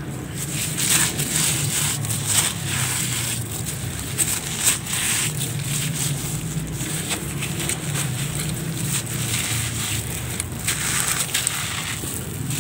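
Hands squeezing and crumbling a damp clump of gritty red material: a continuous grainy crunching and rustling with irregular sharper crunches. Near the end loose grit pours down onto the pile.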